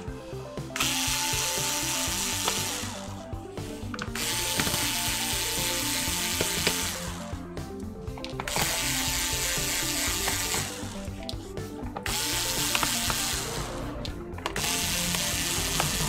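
Electric screwdriver running in four bursts of about two seconds each with a steady whine, backing screws out of a laptop's base panel. Background music plays underneath.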